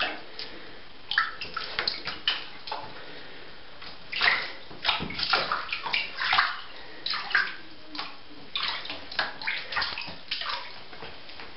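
Shallow water splashing and sloshing in a bathtub as a small wet terrier moves about on its paws. The splashes come in irregular bursts of several quick splashes with short pauses between, busiest a few seconds in.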